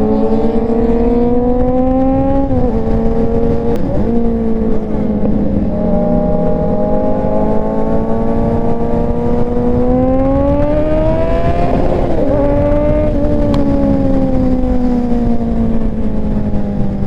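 Kawasaki Z900 inline-four engine under way, its pitch climbing as it accelerates and dropping at gear changes about two and a half seconds in and about twelve seconds in, then falling steadily as it eases off toward the end.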